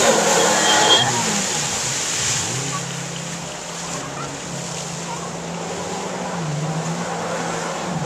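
Jet ski engines running on the water, with a high-frequency hiss over the engine tone. The sound is loudest for the first second, then settles to a steady drone whose pitch steps up and down as the riders throttle, rising again near the end.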